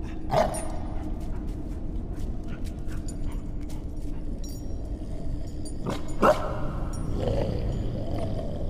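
A wolf-like dog barking twice, once about half a second in and again about six seconds in, over a steady low hum, with faint light clinks between the barks.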